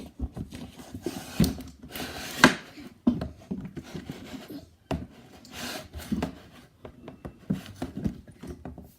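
A large mass of slime being pulled and worked out of its container: irregular rubbing and squelching with knocks and bumps of the container being handled.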